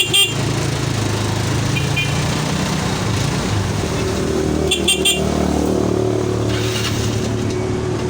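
Yamaha Mio Sporty scooter's single-cylinder four-stroke engine idling steadily, with short toots of its stock horn, three quick ones about five seconds in, as the horn is tested after a new handle switch.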